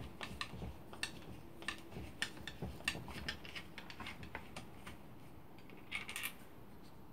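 Faint, scattered clicks and light metallic clinks of a long screwdriver working the screws out of a router's housing. They come thick and fast at first, then thin out, with a short cluster about six seconds in.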